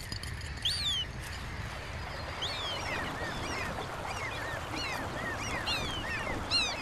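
Gulls calling in a breeding colony: many short, high calls that rise and fall, overlapping, growing busier after the first couple of seconds and loudest near the end, over steady low background noise.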